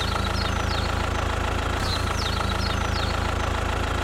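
Mini DIY tractor-bulldozer's engine idling with a steady, even low hum. Short high falling chirps repeat faintly over it.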